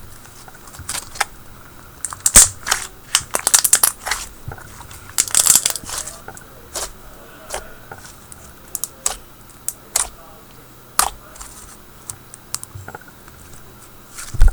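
Thick white slime being squished and pressed by hand, giving irregular sharp clicks and bubble pops. They come thickest from about two to six seconds in, then thin out to scattered pops.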